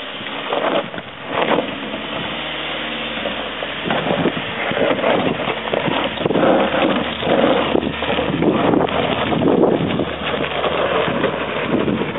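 Suzuki Grand Vitara SUV driving over a rocky step off-road: the engine runs steadily for the first few seconds, then tyres crackle and crunch over loose stones. Wind buffets the microphone.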